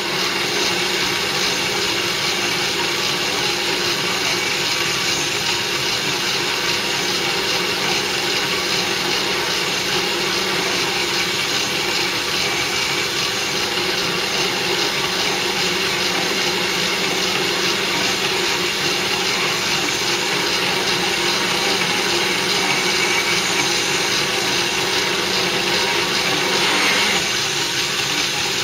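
Myford lathe running slowly with a cast-iron flywheel bolted to its faceplate, a cutting tool turning down the flywheel's hub. A steady machine running sound with a few held tones, unbroken throughout.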